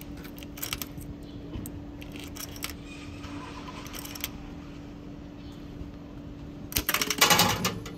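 Vending machine being operated: a few sharp clicks, then a loud rattling clatter near the end, over a steady low hum.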